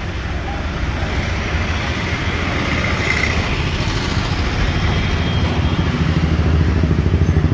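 Motor vehicle engine running with a low, evenly pulsing rumble that grows steadily louder.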